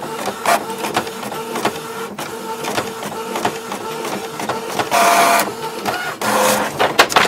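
A printer printing and feeding out a sheet of paper: a steady mechanical whirr with a rapid run of small clicks, and two louder whirring bursts, about five seconds in and again near the end.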